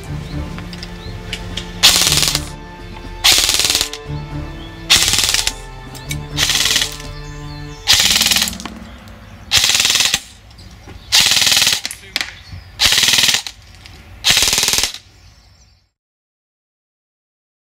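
Airsoft electric rifles (KWA SR10/SR7 AEGs) firing nine short full-auto bursts, each about half a second long and spaced about a second and a half apart, over background music; the sound cuts off sharply near the end.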